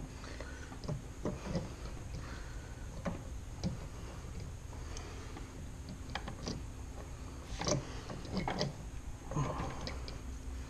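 Irregular light metallic clicks and knocks as a Suzuki RM250 two-stroke dirt-bike cylinder is worked down onto the crankcase by hand. The knocks are scattered, with a quicker cluster in the second half.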